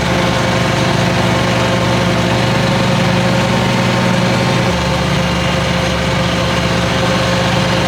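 Car engine and drivetrain running steadily at low speed, heard from inside the cabin, with a steady whine above the low hum; the low hum shifts in pitch a little past halfway through.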